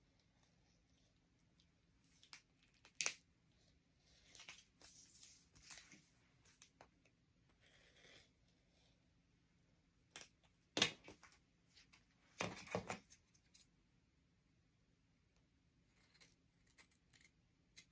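Fabric shears cutting out a fabric piece backed with heat transfer vinyl: scattered short snips and rustles, loudest about three seconds in and again around eleven to thirteen seconds.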